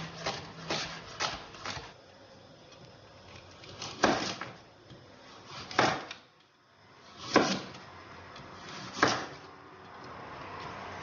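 Chef's knife chopping on a wooden cutting board: quick, light taps for the first two seconds as onion is chopped, then four slower, louder cuts through carrot strips, about one every one and a half seconds.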